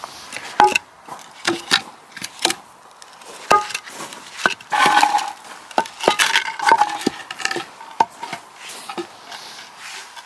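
Wooden battens knocked and scraped against concrete paving slabs as they are set in place: a string of sharp knocks, some with a brief ring, and stretches of scraping around the middle.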